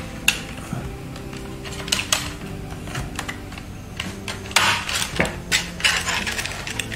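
Plastic screen bezel of a Lenovo ThinkPad E470 being pried off the lid: its retaining clips click and snap loose, with plastic scraping and rubbing in between. Scattered sharp clicks, with a busy run of them about four and a half to six seconds in.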